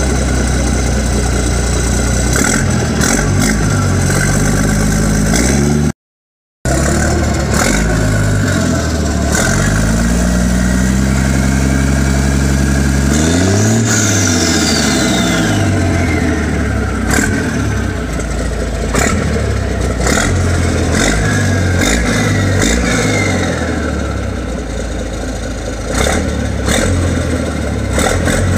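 Old Scania straight-six turbodiesel truck engine running just after a cold start, revved several times. The biggest rise peaks about halfway through, and a high whine falls away as the revs drop. The sound cuts out completely for about half a second some six seconds in.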